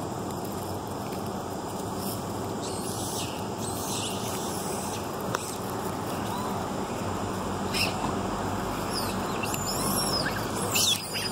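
Long-tailed macaques giving short high-pitched squeals and shrieks at one another, sparse at first and coming more often and louder near the end, over a steady rushing background noise.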